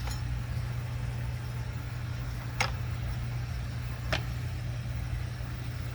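Steady low engine hum, with two sharp clicks about a second and a half apart.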